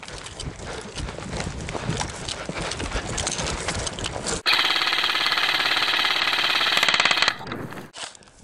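Hurried footsteps and gear movement. About four seconds in, an airsoft electric rifle fires one long full-auto burst that buzzes for nearly three seconds and then stops.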